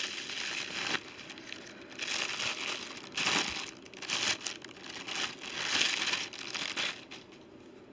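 Plastic packaging crinkling in several bouts as it is handled and unwrapped, dying down near the end.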